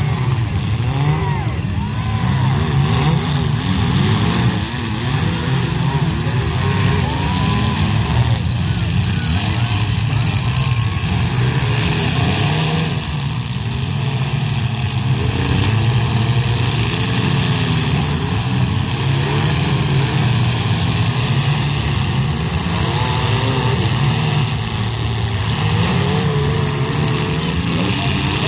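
Engines of many compact demolition-derby cars running and revving at once, pitch rising and falling as they accelerate and back up, with occasional crunches as cars ram each other.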